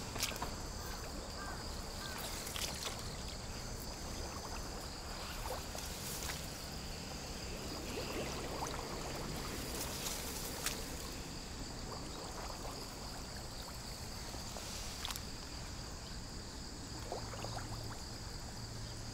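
Steady high-pitched chirring of insects such as crickets or grasshoppers, holding an unchanging pitch throughout, over a faint low hum with a few scattered clicks.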